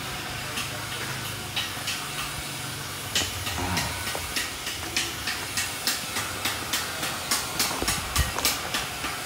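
Footsteps crunching through fallen leaves and branches, a short crackle with each step, coming faster, about two to three a second, from about three seconds in, over a steady hiss.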